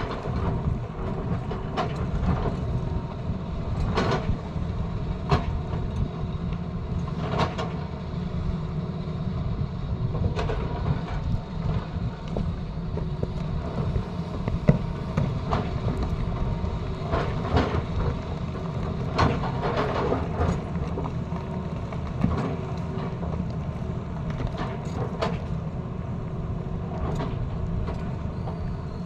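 Tata Hitachi excavator running steadily with a low diesel rumble, broken by irregular sharp knocks and clanks every second or two while it cuts a road.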